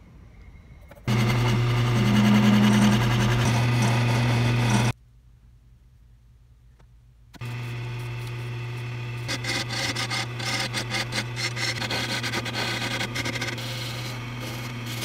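An electric power tool with a steady motor hum runs loudly for about four seconds and stops abruptly. Then a wood lathe runs, spinning a pool-cue blank, and a hand-held turning tool cuts into the wood from about two seconds after it starts, in irregular scraping strokes.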